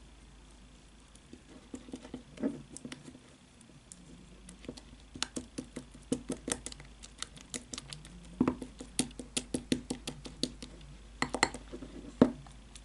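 Metal fork beating a thick egg-white, rice flour and cornstarch paste in a small glass bowl. It makes quick, irregular clicks and taps against the glass that grow busier in the second half.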